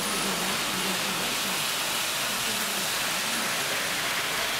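Steady rushing and whirring of H0-scale model trains running over the track.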